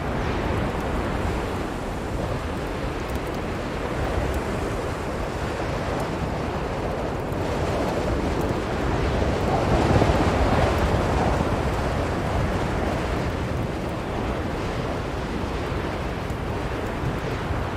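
Blizzard wind blowing steadily, a deep, even rushing that swells into a stronger gust about ten seconds in and then eases back.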